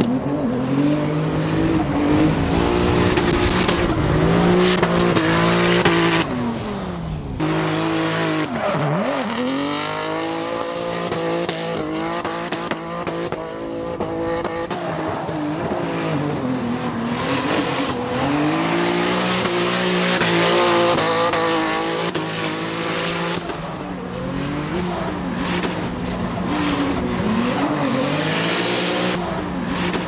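Twin-turbo 3.8-litre V6 of a Hyundai Genesis Coupe drift car, its revs rising and falling again and again as it slides, with the rear tyres squealing and spinning throughout.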